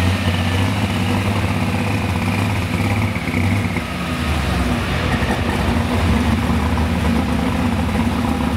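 Pulling tractor's engine idling steadily with a deep, heavy hum after its run.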